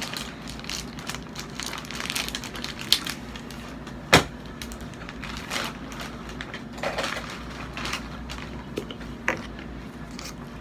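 A package being handled and opened by hand: scattered rustling, crinkling and small clicks, with one sharp snap about four seconds in.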